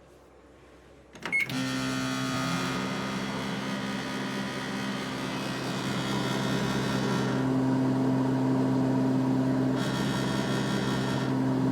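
Galanz retro countertop microwave oven starting up with a click and a short beep about a second in, then running with a steady electrical hum and fan noise.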